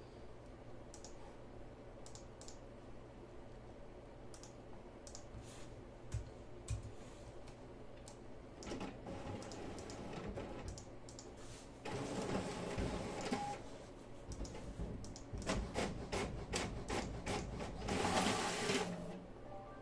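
Scattered clicks of a computer keyboard and mouse, then several bursts of rustling handling noise in the second half, the loudest near the end.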